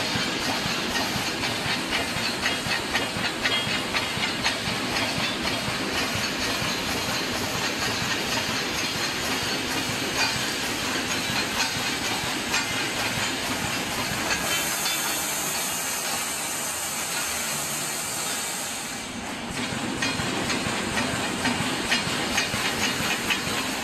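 Poultry-cage wire mesh welding machine running, a dense fast clatter of repeated welding and feed strokes. A high hiss joins in for about four seconds past the middle.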